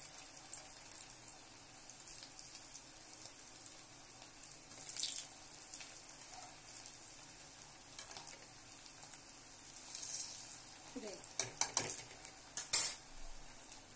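Flour-coated colocasia (taro root) pieces sizzling steadily in shallow oil in an aluminium kadai as they are turned over with steel tongs. A few sharp metal clinks of the tongs against the pan come near the end, the loudest about thirteen seconds in.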